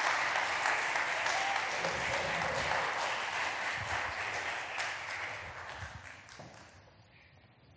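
A church congregation applauding, the clapping gradually dying away and fading out near the end.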